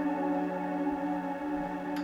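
Music: a slow instrumental passage of steady, held chords, with no singing.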